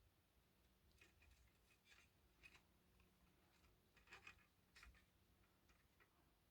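Near silence, with a few faint, short clicks and ticks from small parts of a model locomotive being handled as a speaker is fitted into it.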